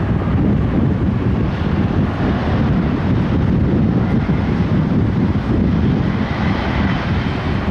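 Strong gusty wind buffeting the microphone, a steady low rumble without a break.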